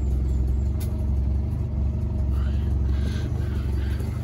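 1967 Morris Mini 850's 848 cc A-series four-cylinder engine idling steadily, warm from a run.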